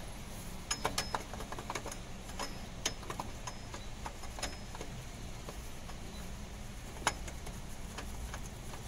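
Irregular sharp metal clicks and light knocks from a Toyota Hilux engine's timing gear being turned and pushed by hand to line its teeth up with the meshing gears, with one louder click about seven seconds in. A steady low hum runs underneath.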